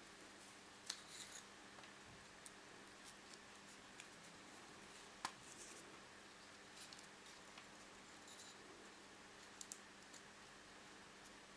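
Near silence with faint handling sounds: twine rustling as it is wound around a bundle of green wooden sticks, and small clicks of the sticks knocking together, the sharpest about a second in and about five seconds in.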